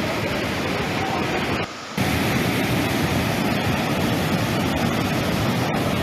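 Swollen, muddy river in flood rushing past as one steady wash of noise, dropping quieter for a moment about two seconds in.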